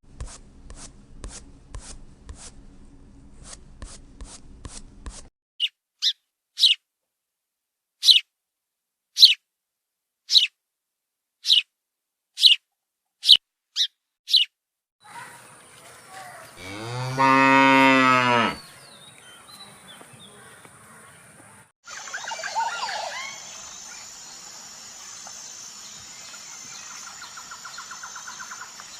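A cow mooing once, a long low call of about two seconds, midway through. Before it come a quick run of clicks and then about ten short high chirps, spaced about a second apart. After the moo the background changes to a faint steady hiss with a brief rattle near the end.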